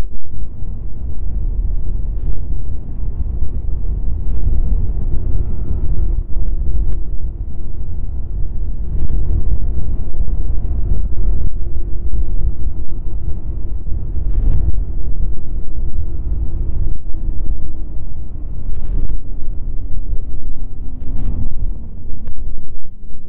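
Snowmobile engine running under way at a steady speed: a heavy low rumble whose engine note sags slightly near the end, with a few sharp knocks.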